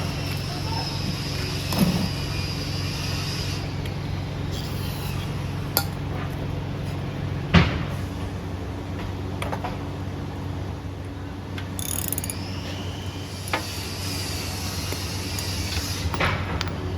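Scattered clicks and a louder knock of metal parts and tools being handled on a small gas pressure-washer engine during no-start troubleshooting, over a steady low hum.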